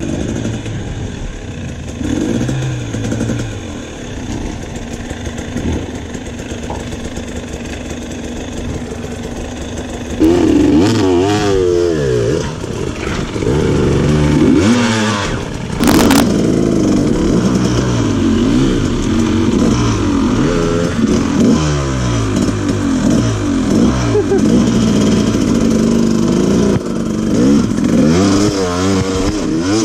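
KTM dirt bike engine revving up and down again and again as it is ridden along a trail, getting clearly louder about a third of the way in.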